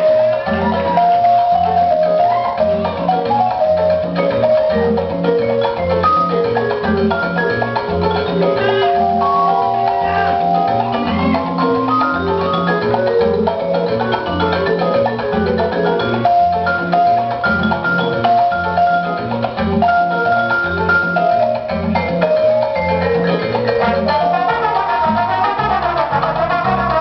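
Salsa music with a repeating bass line, percussion and a melody of held notes.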